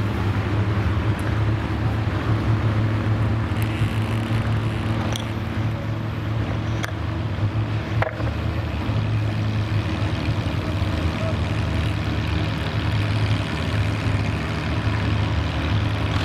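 Farmall Super C tractor's four-cylinder engine running steadily under load, pulling a weight-transfer sled at low speed. A few faint clicks come through around the middle.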